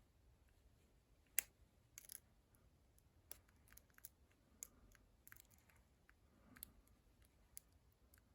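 Faint, scattered metallic clicks and ticks of a lock pick working the pins of a vintage five-pin Master Lock No. 81 padlock held under tension, with one sharper click about a second and a half in.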